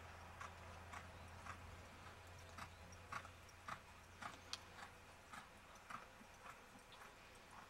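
Faint hoofbeats of a Quarter Horse mare on arena dirt, regular beats about two a second.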